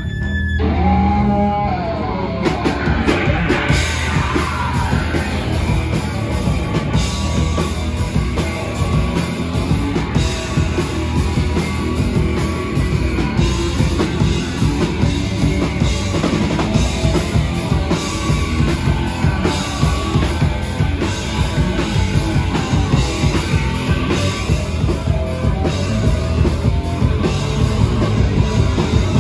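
Hardcore punk band playing live and loud: distorted guitars, bass and drum kit. The full band comes in right after a held guitar tone at the start.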